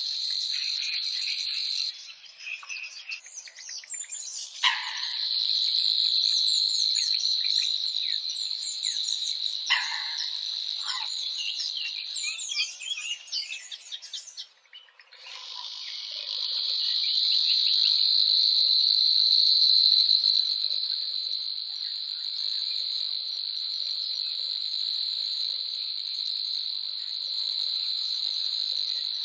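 Insects trilling in a steady high-pitched drone, with many small birds chirping over it. The drone drops out briefly near the start and again about halfway through, and the chirps are thickest in the first half.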